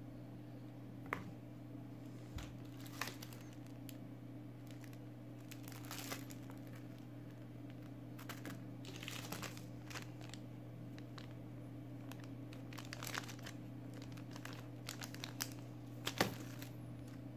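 Paper and plastic packaging being handled and crinkled, in scattered short crackles with a steady low hum underneath; the loudest crackles come near the end as the watch's plastic bag is pulled out.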